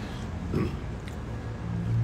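A person's low wordless vocal sound, a hum or grunt, starting near the end, with a faint click about a second in.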